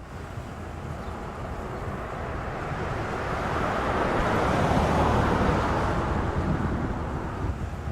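A vehicle passing by: a broad rushing noise that builds to a peak about five seconds in, then fades away.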